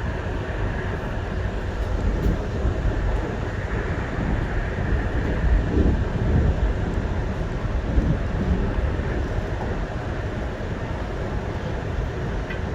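JR Hokkaido Rapid Airport electric train running, heard from inside the passenger car: a steady rumble of wheels on rail, with a brief louder knock about eight seconds in.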